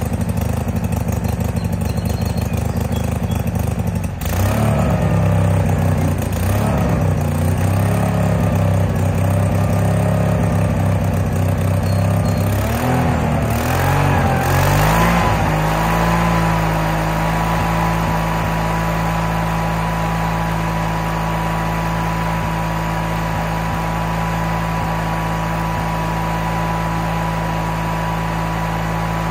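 Case 1816C skid steer engine running; about four seconds in its pitch starts wavering up and down as the drive is worked, climbs briefly around the middle, then settles into a steady run. The machine barely moves and doesn't sound good, which the owner puts down to a really loose pump.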